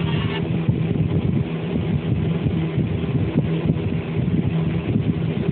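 An engine running steadily, a low droning hum that holds the same pitch throughout.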